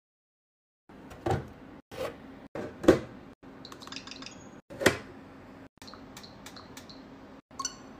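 Objects being handled and set down: a few sharp knocks and taps, the loudest about three and five seconds in, then a run of light clicks, broken up by abrupt cuts.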